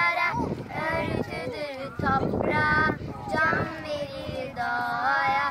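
Young girls singing together, with several long held notes.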